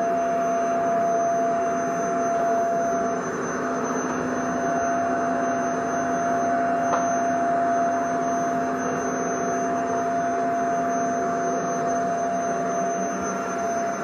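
Vacuum cleaner running steadily: a constant motor whine over a rush of air.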